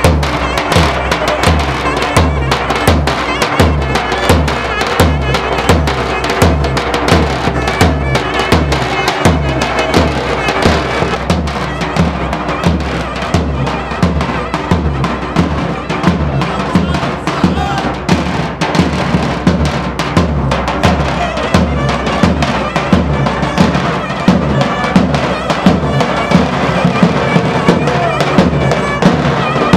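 Davul, the large double-headed Turkish bass drum, beaten in a steady dance rhythm, with a clarinet playing a folk halay tune over it; live davul-and-clarinet (davul-zurna style) dance music.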